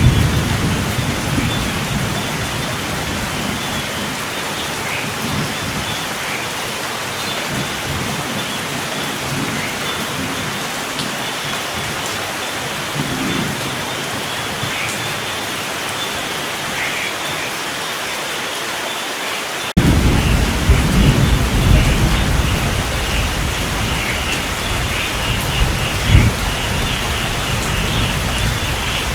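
Steady heavy rain, with a thunder rumble dying away at the start. About two-thirds of the way through, a deep rolling thunder rumble starts suddenly over the rain and swells in peaks, one of them loud near the end.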